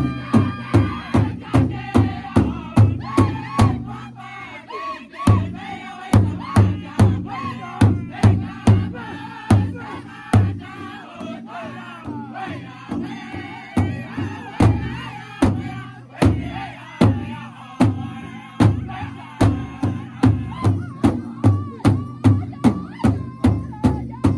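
Powwow drum group singing in unison while beating a large hide-covered powwow drum, about two strokes a second. The drumbeat stops for about a second near four seconds in while the voices carry on, then picks up again.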